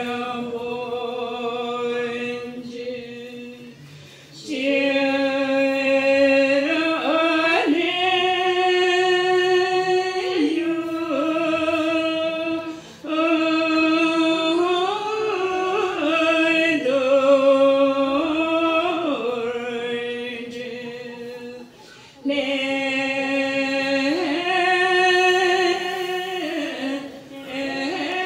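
A group of women singing a slow melody in unison, holding long notes that step up and down. The singing breaks off briefly between phrases, about four, twelve and twenty-two seconds in.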